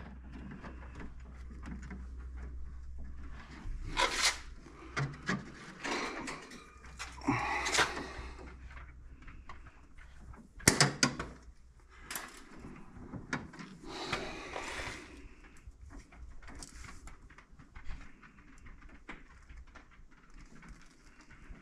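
Scattered clicks, scrapes and rustles of hands and wire strippers working wires inside an open breaker panel, with one sharp click about eleven seconds in.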